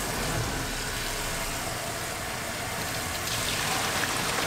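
Tap water running into a steel stockpot of pork bones being rinsed for broth, a steady splashing hiss; near the end the pot is tipped and the water pours out into the sink.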